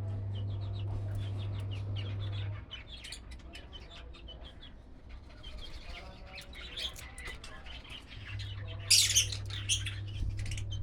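Small pet parrots, budgies and lovebirds, chirping in quick short high calls, with a louder harsh burst about nine seconds in.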